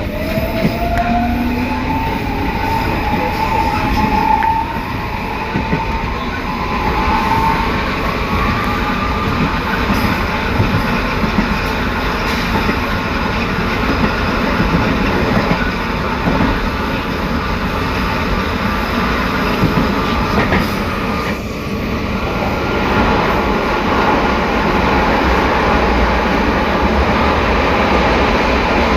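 Metro train traction motor and inverter whining, heard from inside the car, rising in pitch over the first several seconds as the train gathers speed and then running on steadily. Under it is a growl from the reduction gearbox, which is probably short of lubrication.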